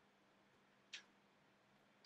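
Near silence: faint room tone with a low steady hum, broken once about a second in by a single brief high tick.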